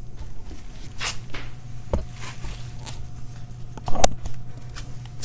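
Scattered knocks and handling noises of parts being worked into a plastic IBC tote, the loudest about four seconds in, over a steady low hum.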